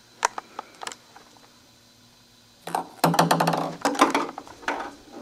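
Ping pong ball bouncing off the foosball table: three light clicks in the first second. About three seconds in comes a second of dense clattering knocks and rattles.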